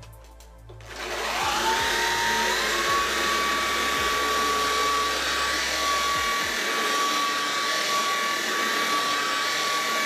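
Shark ICZ160UK cordless stick vacuum switching on about a second in. Its motor whine rises, steps up higher a little later, then holds steady on boost with a loud rush of air as the floor head passes over carpet.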